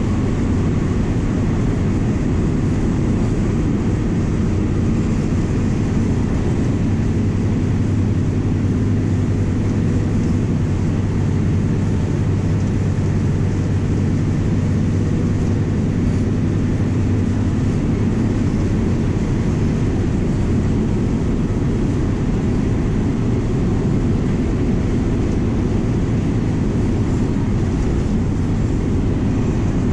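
MWM 6.12 TCE six-cylinder turbo-diesel of a VW 17.230 EOD bus running steadily under way, a constant low drone mixed with road noise.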